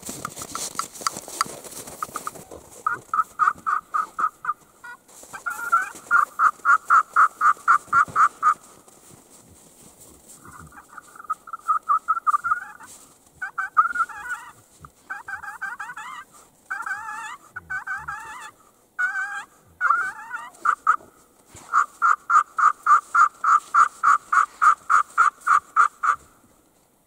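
Primos hand-held turkey call worked in runs of quick, evenly spaced yelps. A choppier stretch of separate notes that slide up and down comes in the middle, then a long run of yelps near the end.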